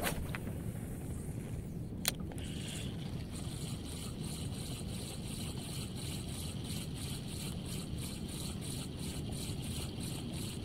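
Relix Cetus Attach 1000 spinning reel retrieving a cast lure: two sharp clicks, at the start and about two seconds in, then a steady ticking whir from the reel cranked evenly, pulsing about three times a second, over a steady low rumble.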